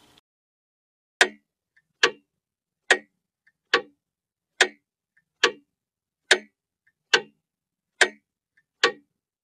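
Mechanical clock ticking, a loud sharp tick a little more than once a second at a very even beat, with a faint lighter click between some of the ticks.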